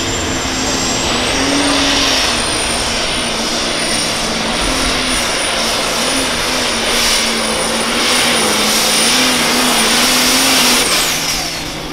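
Super stock diesel pulling tractor, an International, running at full throttle under load as it pulls the sled. A high turbocharger whistle climbs over the first few seconds, holds steady, then falls away near the end as the throttle is lifted and the engine noise drops.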